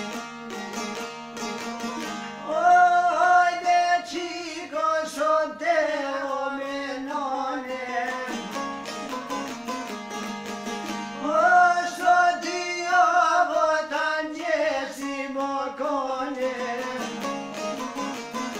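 Albanian folk song: two long-necked çifteli lutes plucked and strummed together in a quick, steady rhythm, with a man singing over them in two long phrases.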